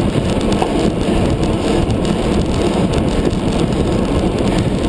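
Steady wind rush buffeting the microphone of a handlebar-mounted camera on a road bike ridden at race speed.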